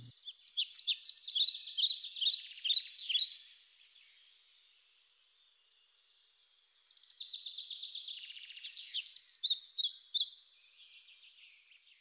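A songbird singing two songs, each a run of quick, high notes lasting three to four seconds, with a pause of about three seconds between them.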